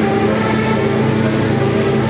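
A bus's multi-tone 'telolet' air horn playing a melody: several held notes that step up and down in pitch every fraction of a second over a steady low tone.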